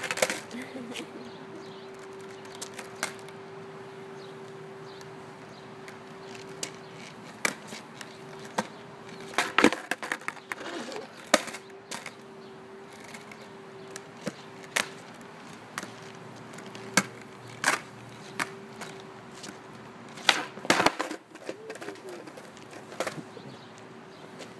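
Skateboard clattering on asphalt: sharp knocks of the deck and wheels hitting the ground as the board is flipped and stepped on, in scattered bunches, the busiest about ten seconds and about twenty-one seconds in. A steady hum runs underneath.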